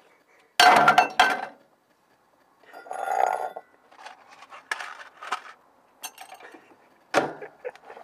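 Clinks and knocks of handling inside a microwave oven as a small circuit board is set down on its glass turntable. The sound comes in separate bursts of clatter: the loudest just after half a second in, another around three seconds, scattered small clicks, then a sharp knock near the end.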